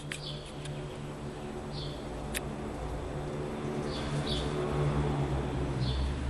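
A steady low hum, growing a little louder towards the end, with a few short, high bird chirps over it and a single sharp click about two and a half seconds in.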